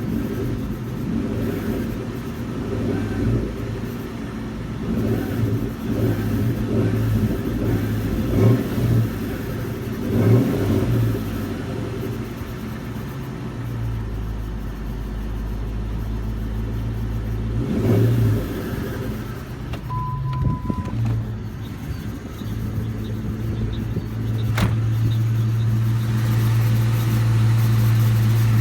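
2000 Ford Mustang GT's 4.6-litre V8 running, its note swelling several times, with the weird hissing noise that is the owner's concern. A short steady tone sounds about twenty seconds in and a sharp click a few seconds later.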